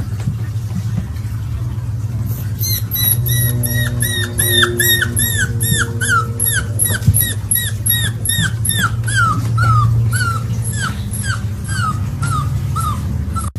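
Golden retriever puppy whimpering: a quick run of short, high, falling whines, about three a second, starting about three seconds in and sinking gradually in pitch before stopping near the end. A steady low hum runs underneath.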